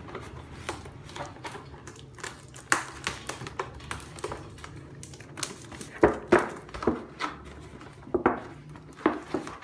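Packing tape being peeled from the rim of a black plastic nursery pot and the pot handled: irregular crackles, clicks and knocks, the sharpest a pair about six seconds in.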